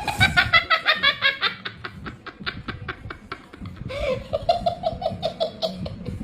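A person laughing hard in quick, rapid bursts of "ha" sounds, dying down and then breaking out again about four seconds in.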